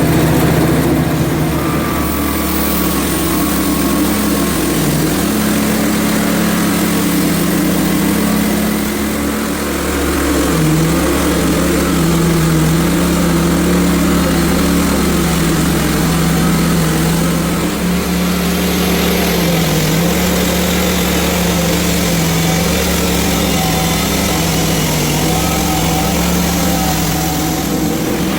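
Engine of a Hudson HFE30 portable band sawmill running steadily while the band blade saws through a log; the engine's pitch sags briefly a few times as it takes the load.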